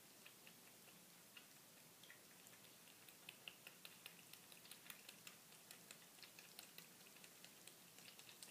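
Two cats lapping water from a small metal bowl: faint, quick, irregular ticks of their tongues, several a second.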